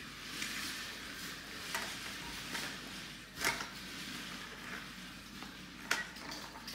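Toy cars being handled and set onto a plastic toy car-carrier truck: a few light clicks and knocks, the loudest about halfway through, over a steady hiss.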